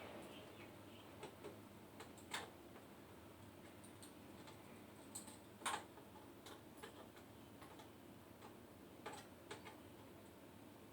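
Scattered sharp clicks and taps of a flat screwdriver working at the plastic panel of a Sony MHC-V02 audio system, about a dozen irregular clicks with the loudest about halfway through.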